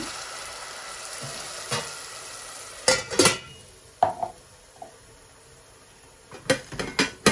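Onions in oil sizzling in a stainless steel pot just after a little water and salt go in. About three seconds in, a steel lid clangs down onto the pot and the sizzle drops away. Near the end come a few quick metallic clinks of the steel lids being handled.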